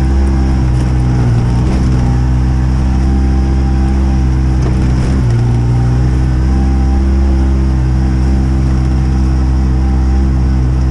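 Vehicle engine running at a steady pitch while being driven along a rough path, with a brief change in pitch about five seconds in.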